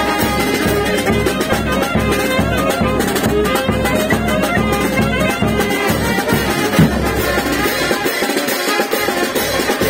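Live band of brass and drums playing a dance tune, the brass carrying the melody over a steady drum beat.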